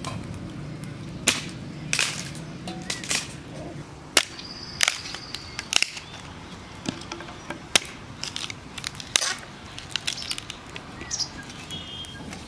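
Sharp, irregular strikes of a hooked chopping blade (billhook) on a dry wooden plank, splitting it into kindling, about a dozen blows. A bird whistles once about five seconds in and chirps faintly near the end.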